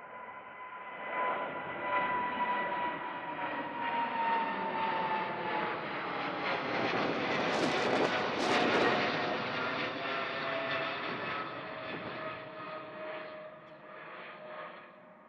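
Jet airliner passing low overhead: the engine noise builds, peaks about eight seconds in and fades away, with a high whine that slowly drops in pitch as it goes by.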